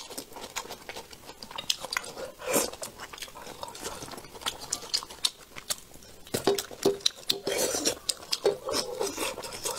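Close-up eating sounds: wet chewing and mouth noises, with many short clicks as wooden chopsticks pick at braised fish and tap the plate.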